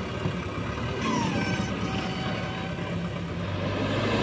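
JCB 3DX backhoe loader's diesel engine running while the machine backs away and lowers its front loader bucket, growing louder near the end. A brief falling whine can be heard about a second in.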